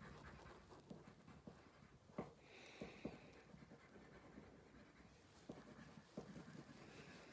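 Faint scratching of a coloured pencil shading on paper, in short strokes with a few light ticks.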